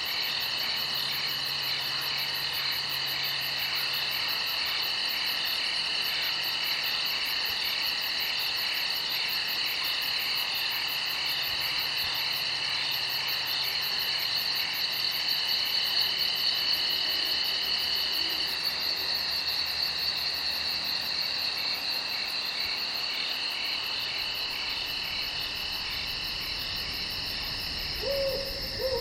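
Crickets chirping at night in several overlapping, steady high-pitched trills, with a very fast pulsing trill above them. Near the end there is a brief, lower call.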